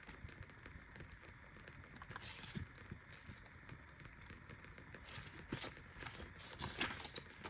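Faint, scattered taps and soft paper rustles from oracle cards and a guidebook being handled, a little busier about two seconds in and again near the end.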